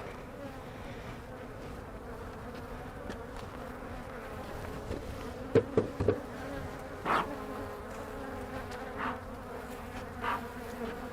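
Honey bees buzzing steadily around an open hive, a dense, even hum. A few brief knocks sound in the middle.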